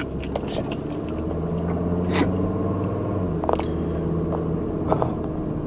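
Steady low hum of a running vehicle engine, with a man hiccuping a few times.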